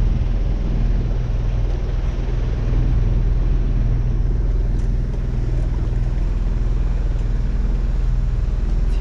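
A sailboat's auxiliary engine running steadily at an even speed, with a constant low hum.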